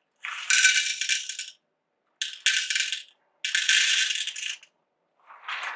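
Whole roasted coffee beans rattling as they are poured into a container, in three short pours of about a second each, while dosing about 11 grams for a single espresso.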